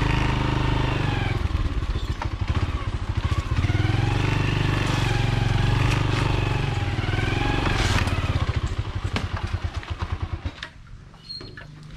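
Small motorcycle engine running under load on a rough dirt trail, its pitch rising and falling several times as the throttle opens and closes. The engine sound falls away about ten and a half seconds in, leaving a few light knocks.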